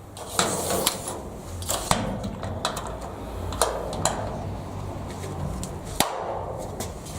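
Sliding toggle clips being slid along and snapped shut on the bottom of a garage door: a string of sharp clicks and knocks at irregular intervals, the loudest about six seconds in.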